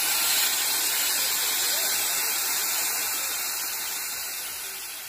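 A steady hiss with faint voices in the background, fading away near the end.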